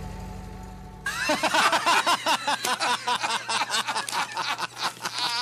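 The last held chord of a song, low and fading, is cut off suddenly about a second in. A person then laughs hard in quick, broken bursts.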